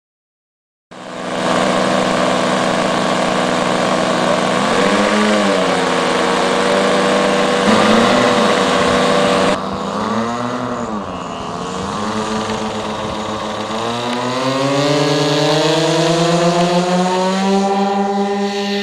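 Engines of a radio-control model P-38 Lightning running, starting abruptly about a second in. The pitch dips twice with throttle changes, then rises steadily through the last several seconds as the throttle opens.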